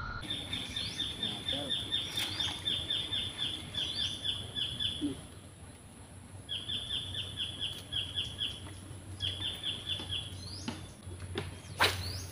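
A bird calling in quick runs of short repeated chirps, about five a second, three runs with short pauses between, over a steady thin high whine; a sharp click comes near the end.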